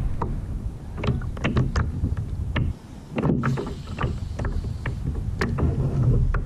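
Irregular light clicks and knocks of a spinning rod and reel being handled and cast aboard a plastic sit-on-top kayak, over a steady low rumble of wind and water.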